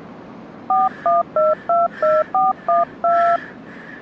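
A phone number being dialled on a touch-tone keypad: eight short beeps, each two notes at once, in quick succession, the last held a little longer.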